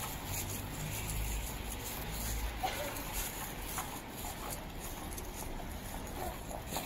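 Rainy city street ambience: a steady hiss of rain and wet road, with a low rumble of a passing vehicle about a second in and scattered light taps.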